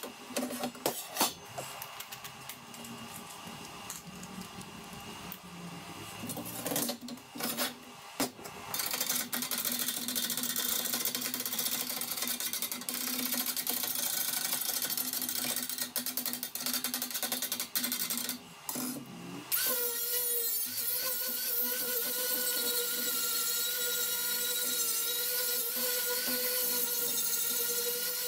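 Handheld angle grinder working the edges of plasma-cut mild steel plate. It runs in short spells at first, then steadily with a level whine, with a brief stop about two-thirds of the way through.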